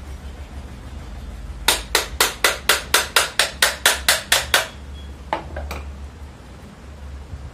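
Hammer striking the metal cover of a ceiling fan motor: a quick run of about a dozen even blows, roughly four a second, then two more single blows, knocking the cover loose to open the motor.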